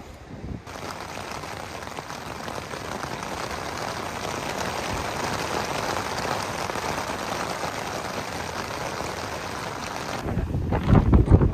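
Steady rain falling on a pop-up tent's fabric, heard from inside the tent, growing a little heavier. Near the end it cuts to wind buffeting the microphone.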